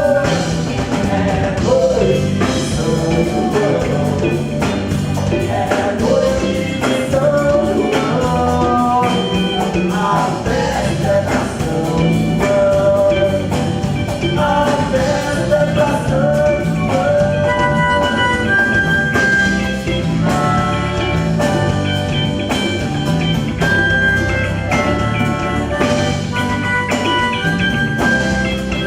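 Band playing an instrumental passage: a lead melody line over bass and a steady beat.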